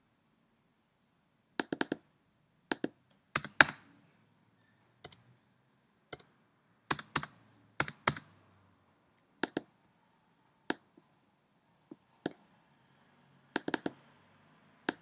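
Computer keyboard keystrokes and mouse clicks, sharp and irregular, often in quick clusters of two or three, the loudest cluster about three and a half seconds in.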